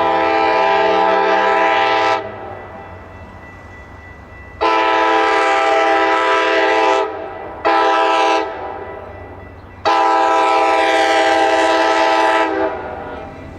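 Locomotive's Nathan K5LA five-chime air horn sounding long, long, short, long: the standard North American grade-crossing signal. A low train rumble fills the gaps between blasts.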